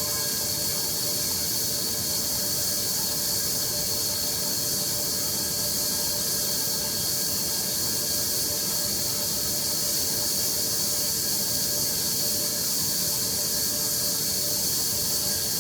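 EGO cordless pressure washer running on its high setting, its water jet hissing steadily out of a 15-degree nozzle over a steady whine from the electric motor and pump. It cuts off suddenly at the very end as the trigger is let go.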